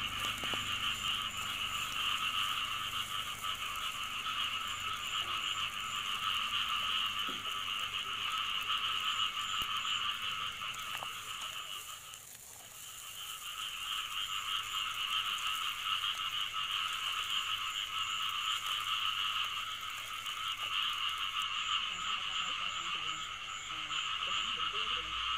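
A dense chorus of frogs calling without a break, with a brief lull about halfway through.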